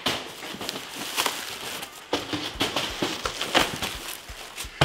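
Plastic wrap and foam packaging rustling and crinkling as a foam insert is lifted out of a cardboard box, with a sharp knock near the end.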